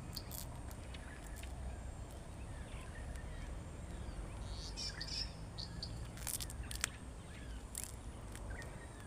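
Small wild birds chirping in short, scattered calls over a steady low background rumble, with a few sharp clicks.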